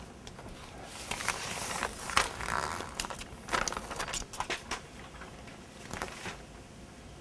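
Self-adhesive window flashing being run across the top of a window opening and pressed down while its backing paper is peeled off: crackling and rustling with many sharp clicks, starting about a second in and dying away after about five seconds.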